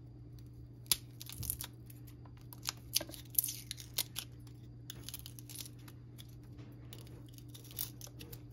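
Garlic cloves being peeled with a serrated knife over a plastic cutting board: the papery skin crinkles and tears, with scattered sharp clicks and scrapes of the knife, most of them in the first half.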